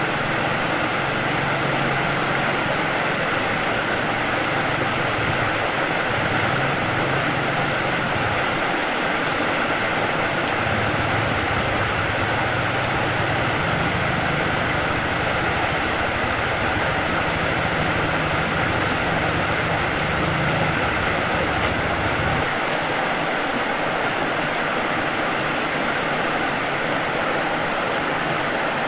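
Fast-flowing river water rushing steadily, with a low engine hum underneath that stops suddenly about 22 seconds in.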